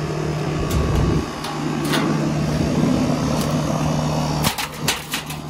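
Rheem heat pump outdoor unit running with a steady hum from its newly replaced condenser fan motor. About four and a half seconds in comes a quick burst of sharp clattering knocks, which the technician takes for ice breaking loose inside the unit and getting slung up.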